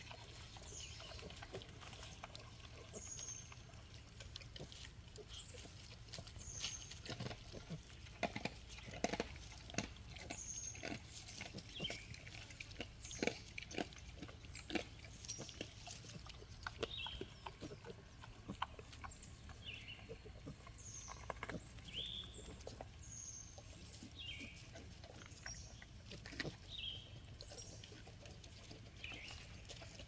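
Piglets eating fruit treats, chewing and crunching them and rooting in the dirt. Many short smacking and crunching clicks come thickest around the middle.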